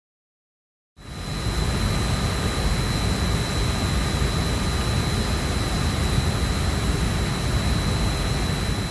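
Cooling tower's centrifugal blower fans running steadily, their wheels freshly balanced: a constant rush of air over a low rumble, with a thin high whine. Silent for about the first second, then the sound comes in and holds.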